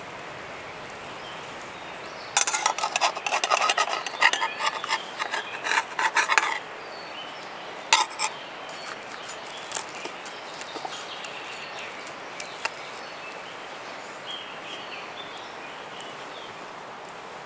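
A quick, dense run of clicks and taps lasting about four seconds, then a few single clicks spaced a couple of seconds apart, over a steady background hiss.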